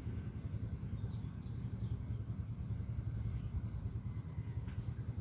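Strong wind buffeting the microphone, a steady low rumble that flutters in level, with a few faint short chirps about a second in.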